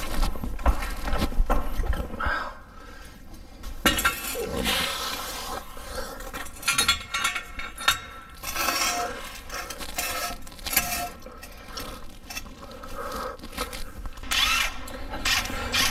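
Hydraulic floor jack being pumped by its long handle to raise the van, in repeated strokes every second or two.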